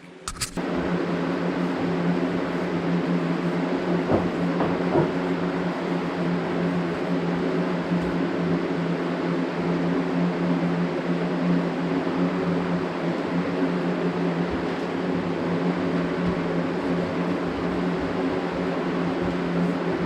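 Steady machine hum: an even whir with a constant low tone, like a running fan motor, unchanged throughout. Two faint ticks come about four and five seconds in.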